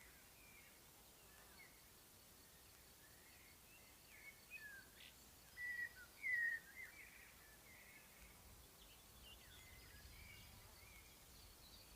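Faint birdsong from several small birds, short chirps and warbled phrases overlapping, with a louder burst of song near the middle.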